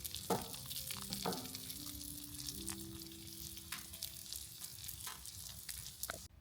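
Sizzling, crackling noise with scattered sharp crackles, over soft held music notes that step in pitch; everything cuts off suddenly near the end.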